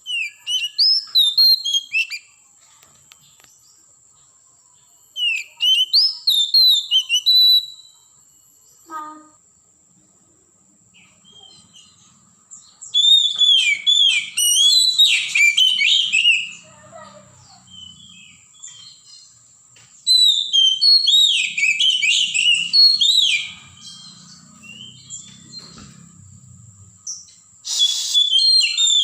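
Oriental magpie-robin singing: about five bursts of rapid, varied, sweeping song phrases, each a few seconds long, separated by short pauses. A faint steady high tone runs underneath.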